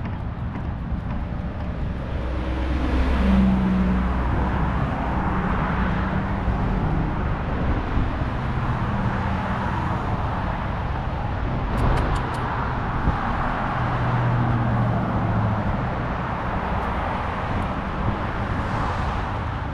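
Road traffic noise: a steady rumble of passing vehicles, swelling about three seconds in. A few faint clicks come near the middle.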